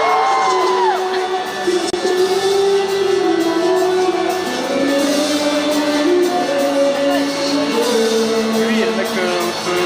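Live pop-rock band performance: a singer holding long notes over the band, played through a concert PA.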